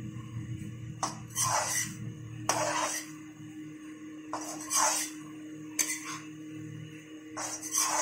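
Metal spatula scraping against a kadhai while stirring macaroni, about five uneven scrapes a second or so apart.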